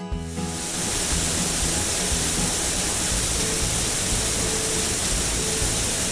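Cartoon sound effect of rinse water spraying from a shower head, a steady loud hiss, over background music.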